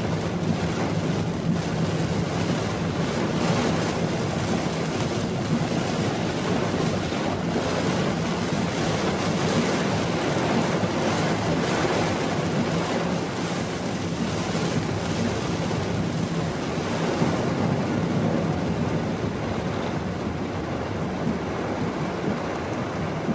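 Heavy rain beating on a moving car's windscreen and roof, with tyres hissing through water on a flooded road and a steady low hum from the car. The hiss thins a little near the end.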